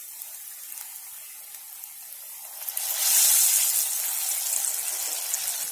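Urad dal vadas deep-frying in hot oil with a steady sizzle. About three seconds in, the sizzle grows much louder as another vada goes into the oil, then eases off.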